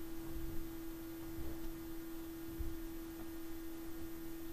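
A steady, pure, hum-like tone of one pitch, with a faint low rumble beneath it.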